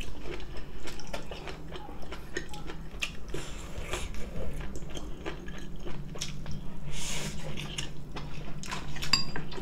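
Two people chewing and biting food close to the microphone, with many small wet mouth clicks and crunches: braised beef ribs, which are tough, and crisp cucumber-pepper kimchi. A steady low hum runs underneath.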